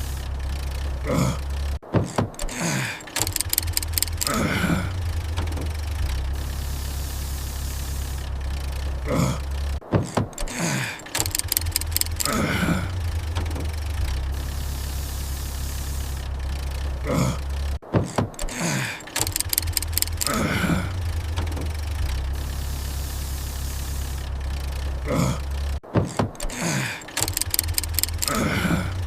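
Looped cartoon car-engine sound effect: a steady low engine hum, broken about every eight seconds by a sudden cut with clicks and a few falling, sputtering tones, like an engine that fails to start and dies.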